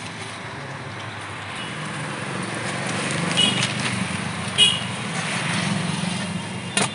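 Steady street traffic rumble with two short metallic clinks of aluminium food containers and lids in the middle, and a sharp click near the end.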